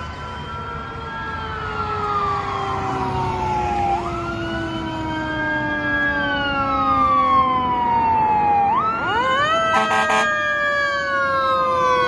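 Fire engine siren wailing on an emergency run, its pitch rising and falling slowly in long sweeps, with a second, lower siren tone winding slowly down underneath. It gets louder as the truck approaches, with a brief burst of rapid pulses about ten seconds in.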